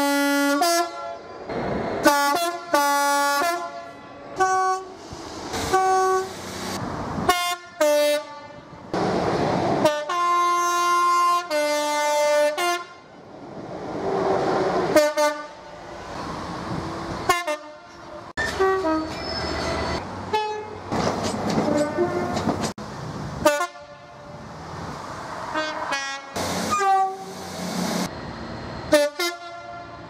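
Class 66 diesel freight locomotives' horns sounding multi-tone sequences: quick runs of short blasts switching between pitches, with a few longer held notes.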